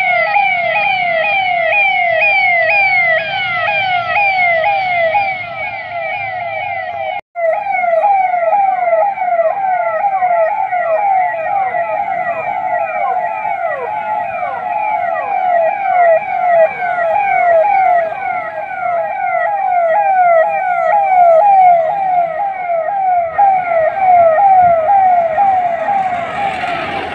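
Electronic sirens of police response vehicles sounding a fast yelp, a pitch that falls sharply over and over, about three times a second. The sound breaks off for an instant about seven seconds in, then carries on.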